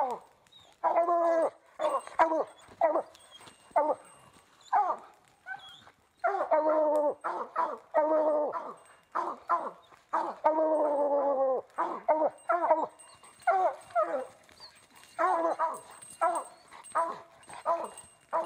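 Hunting hound baying at a mountain lion up a tree: a steady run of short barks broken by several longer drawn-out bawls. This is the hound's treed bark, the call that tells the hunters the cat is treed.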